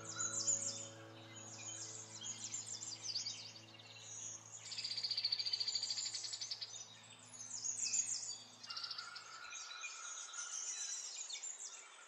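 Several small birds chirping and twittering, with a fast, buzzy trill from about four and a half to seven seconds in. Under them is soft background music with held notes, which stops about three-quarters of the way through.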